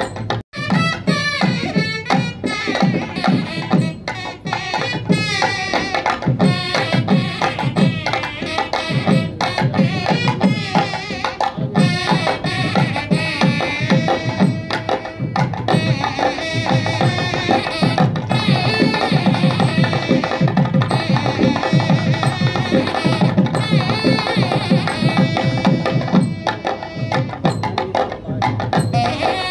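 Background music: a melody over a steady hand-drum beat, with a brief gap about half a second in.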